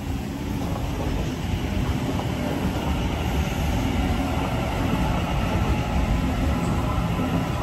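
A Sydney Trains double-deck electric train running along the platform, with a steady low rumble of its wheels on the rails.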